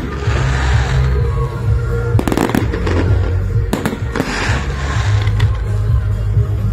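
Aerial firework shells bursting overhead: several sharp bangs, with bursts of crackling from glittering stars at the start and again about four seconds in. Loud background music with a strong bass plays throughout.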